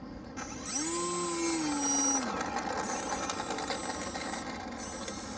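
Electric motor and propeller of an RC flying wing spinning up with a rising whine about a second in, holding high, then easing back about two seconds later and running on with a steady high-pitched whine.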